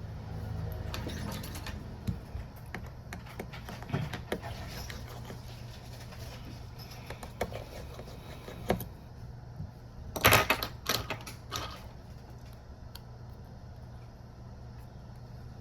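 Small clicks and taps of tools and phone parts being handled during a smartphone teardown, with a quick cluster of louder clicks about ten seconds in, over a steady low hum.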